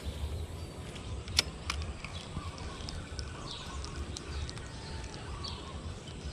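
Outdoor ambience: a steady low rumble of wind on the microphone, a single sharp click about a second and a half in, and a few faint high bird chirps.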